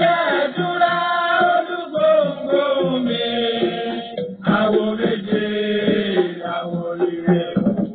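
Chanted singing in a wavering melody over music, with a short break about four seconds in.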